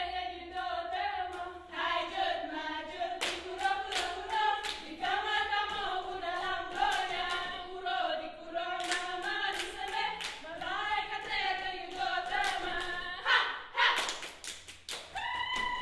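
A group of women singing a chant in unison, broken at intervals by sharp hand claps, with a quick run of claps near the end.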